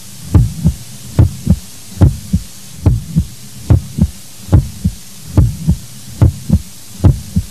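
Heartbeat sound, a steady double thump (lub-dub) repeating a little faster than once a second, about 70 beats a minute.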